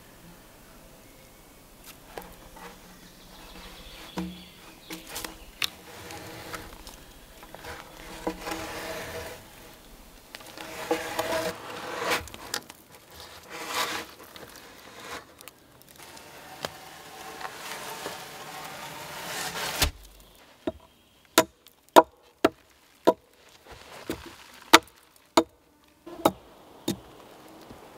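Rustling and scraping as a dead pine log is handled and stood upright in a sandy pit. Then, from about two-thirds of the way in, a hatchet strikes the wooden post about ten times: sharp, separate knocks.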